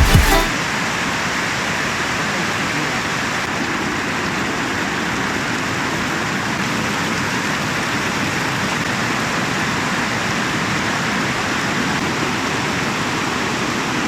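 Running water rushing steadily at an even level, with no change.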